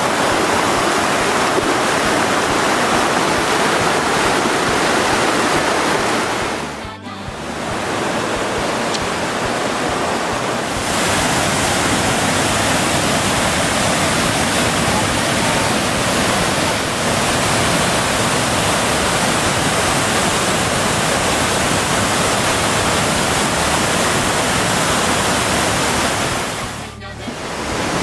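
Water rushing steadily over rocks in a fast mountain stream, then the continuous rush of a tall waterfall pouring into a plunge pool. The sound drops out briefly about seven seconds in and again near the end.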